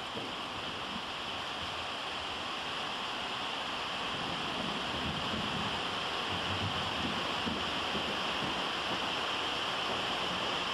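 Torrential rain on the metal roof of an indoor arena: a steady, dense hiss that grows slightly louder.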